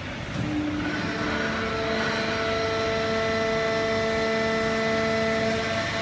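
Fully automatic horizontal hydraulic baler and its feed conveyor running: a steady machine hum with a whine of several steady tones, which sets in and grows a little louder about a second in.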